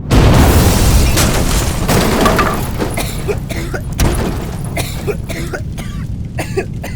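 Fireworks going off: a sudden loud blast at the start that dies away over a couple of seconds, followed by a run of sharp cracks and pops.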